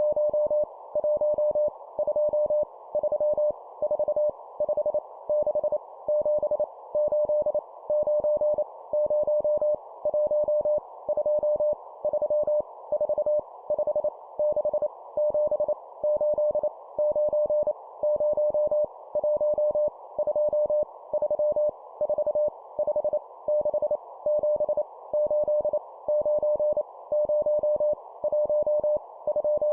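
Morse code numbers sent at 25 words per minute as a single mid-pitched beep keyed rapidly on and off, in quick groups with short gaps. A steady band of hiss sits underneath.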